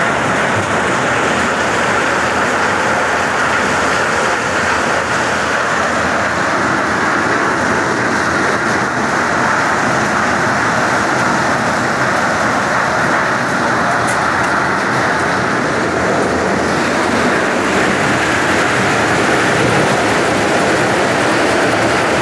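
New Kamdhenu maize sheller running under load, shelling corn cobs fed in by its conveyor, with kernels pouring from the outlet: a loud, steady, dense rush of mechanical noise.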